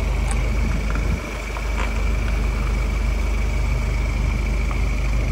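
Diesel engine of a lifted Ford Ranger pickup running at low revs as the truck creeps forward over mud and gravel, a steady deep rumble.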